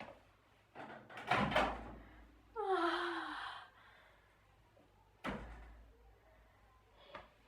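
A door being handled: a click, a cluster of knocks and thuds about a second in, a short falling pitched sound about three seconds in, and another knock a little after five seconds.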